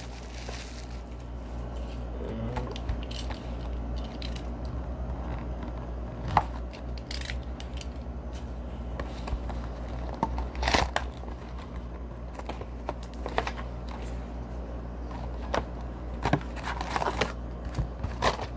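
Hockey-card hobby box being opened by hand, with rustling, clicks and a few sharper knocks as the foil card packs are taken out and set down on a table.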